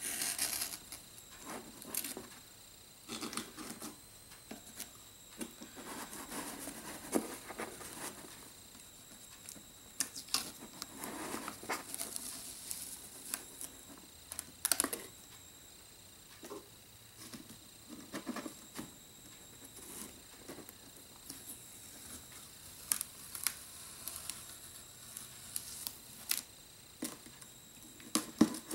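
Blue masking tape being peeled off a model rocket's body tube and fins, in short scattered tearing rips with crinkling and light clicks as the tape is pulled away and handled.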